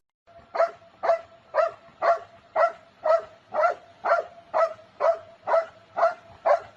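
A dog barking in a steady run, about two short barks a second, a dozen or so in a row.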